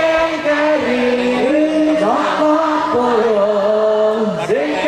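Men singing a sholawat, an Islamic devotional song, through microphones, in long held notes that slide from one pitch to the next.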